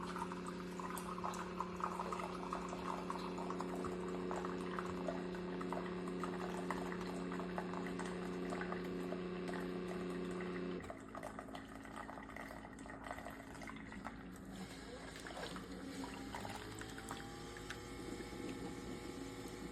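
Keurig K-Classic single-serve coffee maker brewing: its pump hums steadily while coffee pours into the cup, then the pump cuts off sharply about halfway through, leaving a quieter trickle and dripping.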